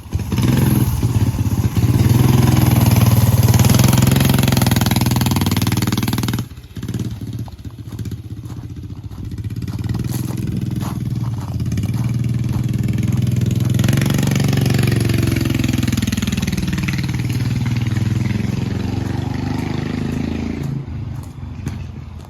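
Homemade chopper-style mini bike's small engine running under throttle on a test ride: loud for about six seconds, then dropping away suddenly, building up again from about ten seconds in as it comes back, its pitch sliding down as it passes, and fading near the end.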